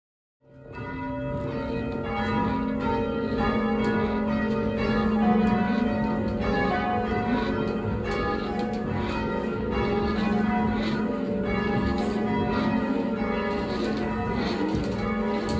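A ring of eight church bells, mostly cast by Taylor's, with a 14 cwt tenor in F#, being change rung: struck bells sounding one after another in quick succession, their tones overlapping and ringing on. The sound comes in about half a second in.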